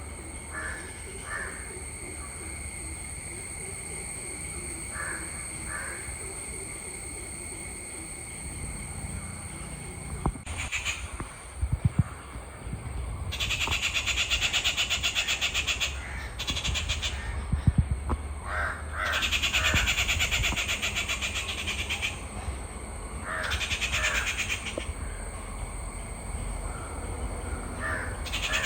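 Crows cawing: short calls, mostly in pairs, repeated several times, over a steady outdoor ambience. From about halfway a loud, high, pulsing drone starts and stops in stretches of a few seconds.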